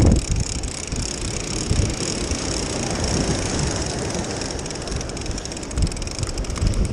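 Surf washing over the rocks and wind buffeting the microphone, with a fishing reel being cranked close by as line is reeled in.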